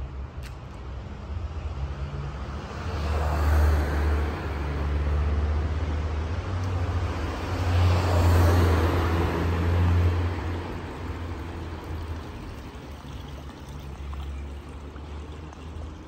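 Street traffic: two vehicles pass close by, the first swelling up about three seconds in and the second louder around eight to ten seconds, each fading away over a steady low traffic hum.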